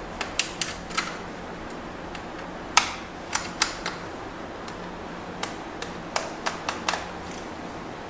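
Irregular sharp clicks, about fifteen in all, some in quick runs of two to four, as a Phillips screwdriver works the screws of a laptop's plastic bottom cover.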